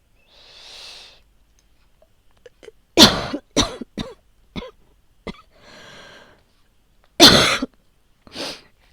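A person coughing in fits from a respiratory illness. A long breath in is followed by one hard cough and four quicker, weaker coughs, then another breath in, and near the end one loud cough and a softer one.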